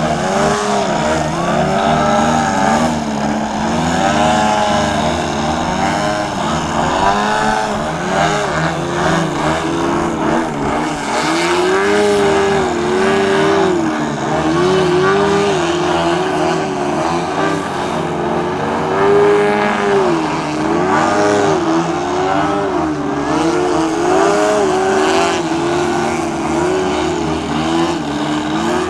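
Engines of two radio-controlled aerobatic model planes, one a Sukhoi 31 model, running with their pitch rising and falling again and again. The throttle is being worked to hold a plane hanging nose-up in a hover.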